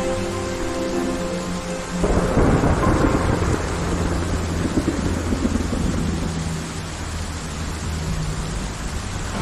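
Heavy rain pouring steadily, with a loud clap of thunder breaking about two seconds in and rumbling away over the next few seconds. Soft background music carries on underneath.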